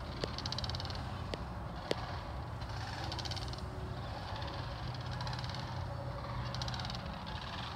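A flock of sandhill cranes calling, short bouts of rattling, rolling calls coming every second or two, over a steady low hum. A few sharp clicks in the first two seconds.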